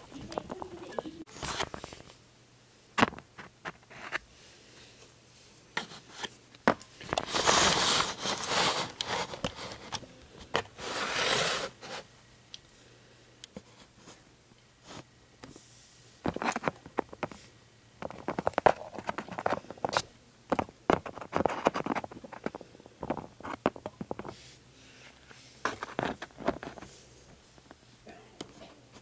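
Handling noises from small plastic toy pet figures being held, moved and set down: scattered sharp clicks, taps and scrapes, with two longer rustling stretches about eight and eleven seconds in.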